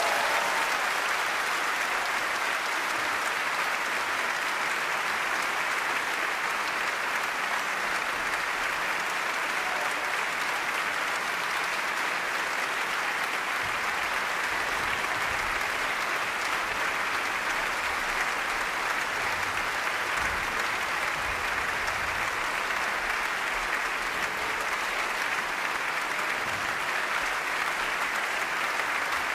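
Large concert audience applauding, a dense, steady mass of clapping that holds at an even level throughout.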